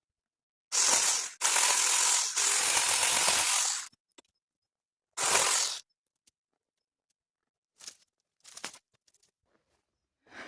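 A small power cutting tool run in bursts through bush branches: a rattling run of about three seconds starting a second in, a short burst around five seconds, then a few faint short sounds.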